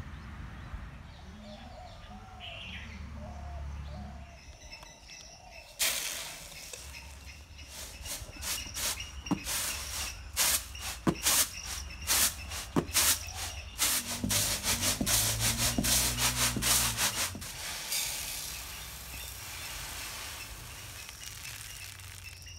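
Birds chirping softly, then a long run of sharp clatters and rustles as rice grain is handled, ending in a steady hiss of rice grain pouring into a clay bowl.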